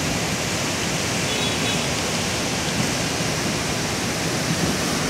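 Steady rushing of a river in flood, its muddy storm water running fast and churning.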